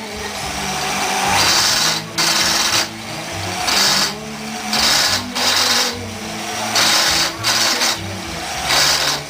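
Motorised coconut grinder running and grating coconut, its hiss swelling and dropping about once a second over a steady motor hum.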